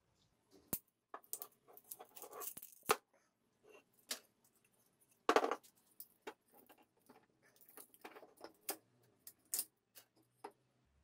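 Wooden strips and a small wooden block handled and fitted together on a metal table top: scattered light clicks and knocks of wood on wood and metal, the loudest about five seconds in.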